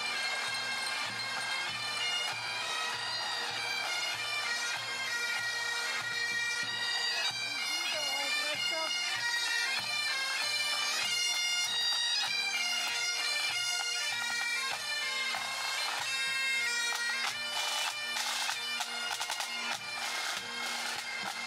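Pipe band playing: bagpipes carry a stepping melody over their steady drones, and snare drums join in with rapid strokes during the last few seconds.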